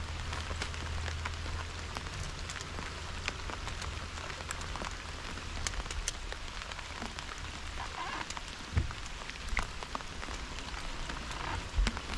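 Steady rain falling on the lake surface, an even hiss with many close drops ticking individually. Two dull thumps stand out, one about two-thirds of the way through and one near the end.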